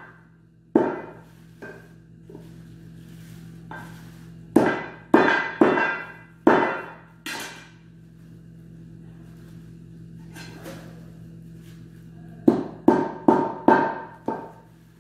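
Large cleaver-like knife chopping into goat meat on a metal tray: sharp knocks, each with a short metallic ring. The blows come scattered through the first half, then five in quick succession near the end.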